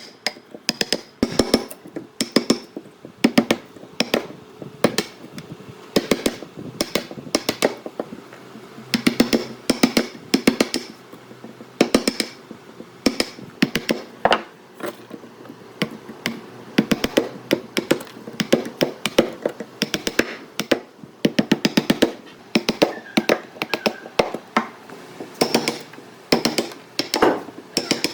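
Quick runs of sharp taps and knocks on wood, recurring every second or two with short pauses between them.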